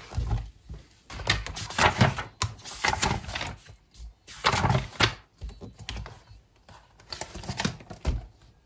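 Pages of a disc-bound paper notebook being opened and turned by hand on a desk: a series of irregular paper rustles and flaps, with soft thuds as the cover and pages are laid down.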